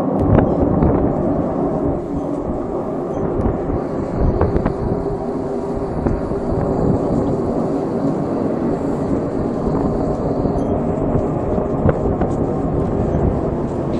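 A loud, continuous low drone of several held tones over a rumble, heard in the sky; its source is not identified.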